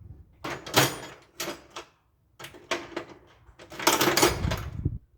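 Wrench and metal parts clattering and scraping in about five short bursts as lock nuts are taken off lawn-tractor sheet metal. The longest and loudest burst comes about four seconds in.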